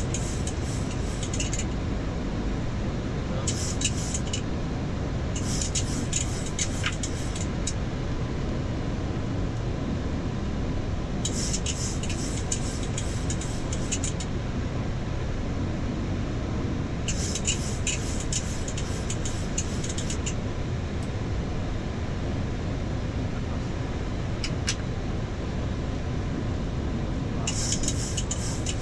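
Steady cockpit noise of a Boeing 737-8 MAX in flight, made of airflow and engine sound, during the descent. Short bursts of high crackly hiss come and go several times over it, each lasting one to three seconds.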